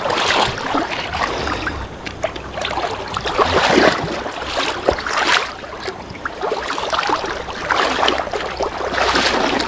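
Shallow river water splashing around the feet and legs of someone wading across it, rising and falling in uneven surges.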